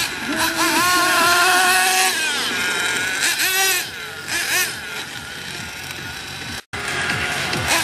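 Radio-controlled truggy revving as it is driven, its pitch climbing, holding and falling in runs of a second or two. The sound cuts out abruptly for a moment near the end.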